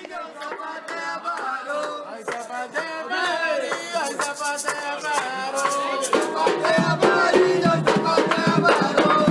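Background music with singing and percussion, growing louder throughout; a fuller low part comes in about six seconds in.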